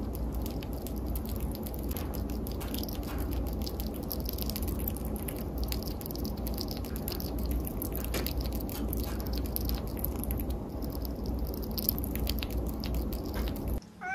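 Chipmunk nibbling food held in its paws: a run of small, irregular clicks over a steady low hum, cut off abruptly near the end.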